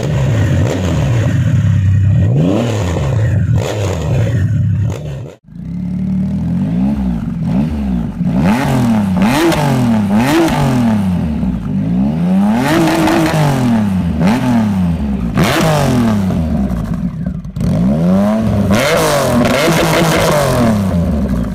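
Triumph Rocket 3's 2,458 cc inline-three, at a standstill, revved up and down in repeated blips through a BugBike aftermarket exhaust. After a brief break about five seconds in, it is revved again through an Arrow exhaust, each blip a quick rise and fall in pitch.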